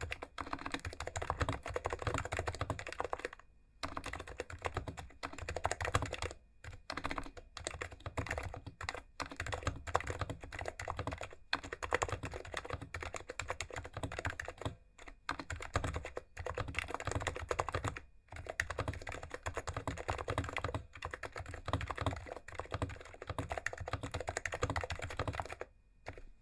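Fast, continuous typing on a PFU/Fujitsu HHKB Classic with Topre electrostatic capacitive switches (sliders lubed with 205 grease, KBDFans rings) and stock PBT keycaps. The typing runs in bursts broken by short pauses and stops shortly before the end.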